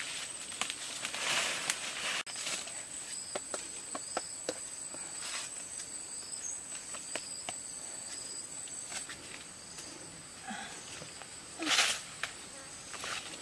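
Leaves rustling and twigs crackling as someone pushes through undergrowth and climbs a jackfruit tree, with a louder rush of leaves near the end. A steady high-pitched insect drone sounds behind it and stops a little past the middle.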